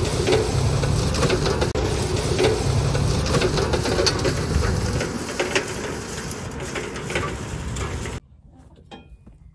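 John Deere tractor pulling a heavy 24-blade disc harrow through rough ground: the engine runs under load while the disc rattles and clanks over sticks and wood chunks. The noise fades as the tractor moves away, then drops abruptly to a quiet background about eight seconds in.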